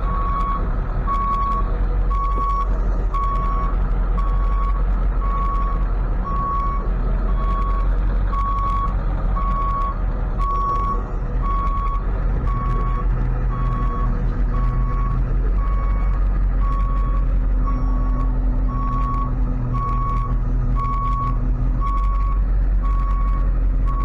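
Tow truck's backup alarm beeping steadily, about two beeps a second, over the truck's engine running. A lower steady hum joins about halfway through.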